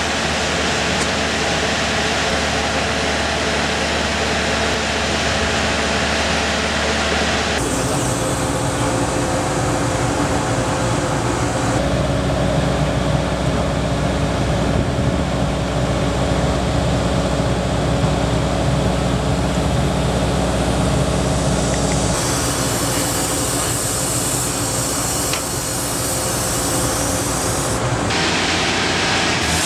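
Hammelmann DockBoy hull-blasting carrier's machinery running steadily, a loud hum and drone with a few steady tones, shifting abruptly in character several times.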